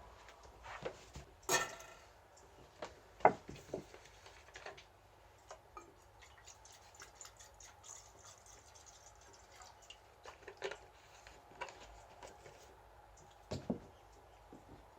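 Beef grilling over burning fire-starter charcoal: irregular small pops and crackles, with a few louder clicks.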